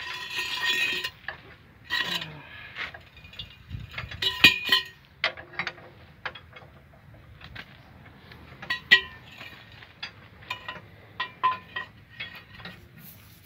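Steel hand tools clinking and knocking against an excavator's steel track undercarriage during a track chain guard repair: a wrench on a bolt and a long steel bar levering at the track chain. There is a scraping rush at the start, then irregular sharp metallic clinks, some ringing briefly.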